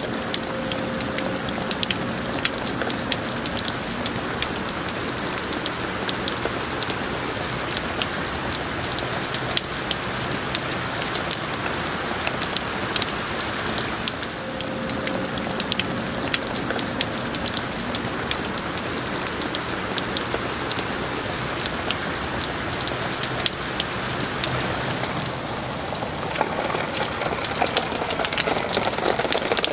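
Rain falling steadily onto the ground and trees: a dense, even hiss dotted with many sharp little drop impacts. It grows a little louder near the end.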